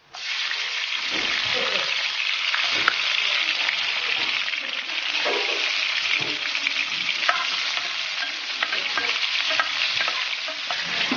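Chopped chillies, ginger, garlic and spring onion sizzling in hot oil in a frying pan, the aromatics being fried until fragrant. A spatula stirs them, with a few sharp clicks against the pan.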